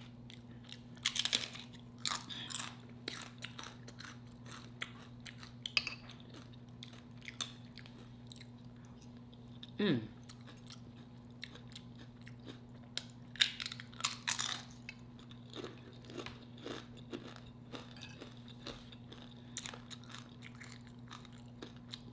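Close-up chewing and crunching of crisp homemade tortilla chips, with bursts of sharp crunches about a second in, around two seconds and again around thirteen to fourteen seconds, and softer chewing between.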